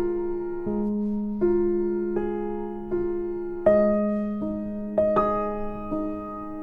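Background music: a gentle solo piano (or electric piano) playing slow struck notes and chords over a held low note.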